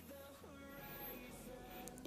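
Faint background music.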